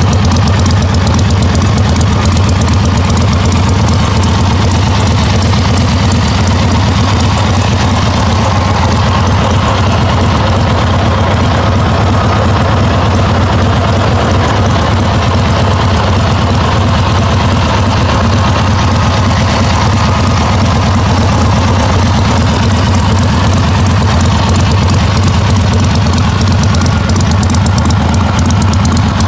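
Harley-Davidson Sportster Ironhead XLCH's air-cooled V-twin idling steadily at about 1,000 rpm.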